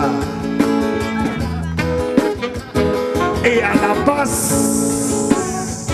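Live jazzy band music: plucked guitar and double bass with alto saxophone playing held, wavering notes. A brief high hiss comes in about four seconds in and stops about a second later.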